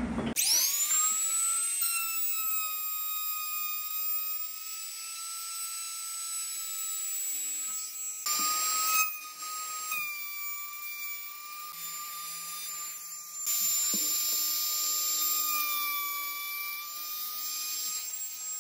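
Compact trim router spinning up and running at a steady high-pitched whine as its bit cuts grooves into a pine board, with a few louder stretches as it bites into the wood.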